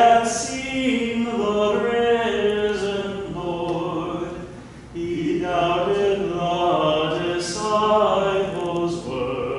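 A priest's voice chanting the liturgy unaccompanied, in long sung phrases with a short pause for breath about five seconds in.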